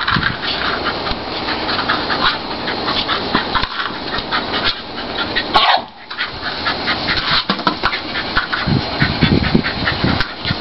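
Staffordshire bull terrier breathing noisily and snuffling while pushing a ball through long grass with her nose, with steady rustling of the grass. One brief louder sound comes a little past halfway, followed by a moment's lull.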